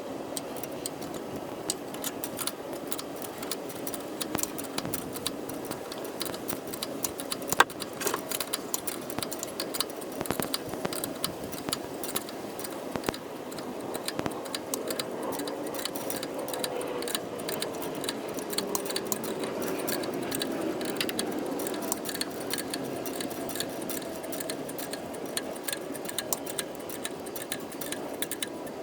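Hand tools and metal parts clicking and clinking in irregular quick succession during engine reassembly work, over a steady low hum, with one sharper knock about a third of the way in.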